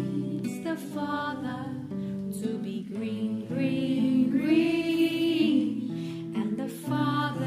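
Voices singing a slow devotional song over an instrumental accompaniment of steady chords, with one long held note in the middle.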